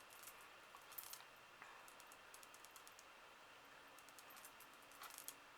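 Near silence: room tone with faint scattered small clicks and taps, a few clustered about a second in and again near the end.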